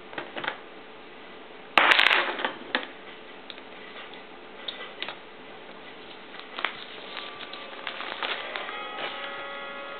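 Handling noises of gum paste work on a stone worktop: a metal cutter and knife scraping and tapping, with one louder scrape about two seconds in and scattered small clicks. Near the end, clear plastic rustles as it is laid over the cut petals.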